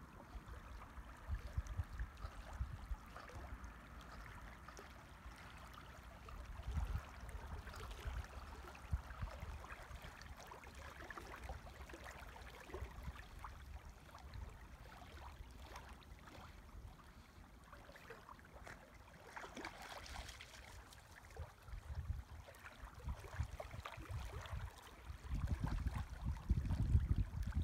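Faint wind buffeting the microphone, with light lapping of lake water; the gusts grow stronger near the end.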